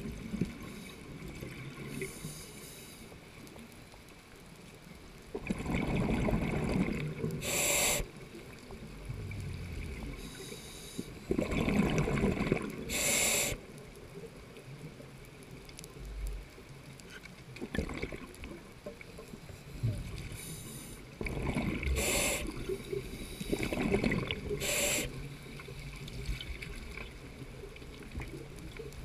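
Scuba diver breathing through a regulator underwater. Several loud rushing bursts of exhaled bubbles, each a couple of seconds long and carrying a brief sharp hiss, stand out against a steady low hiss.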